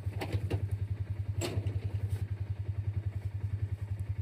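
An engine idling with a steady, evenly pulsing low throb. A few light clicks or knocks of handled gear come within the first second and a half.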